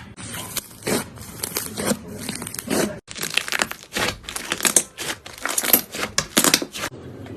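Slime being squeezed and pulled apart close to the microphone: dense crackling and crinkling. The sound stops abruptly about three seconds in and near the end, then carries on with a different texture.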